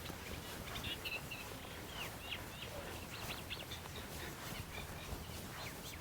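Songbirds chirping in short, scattered notes over a steady outdoor background hiss.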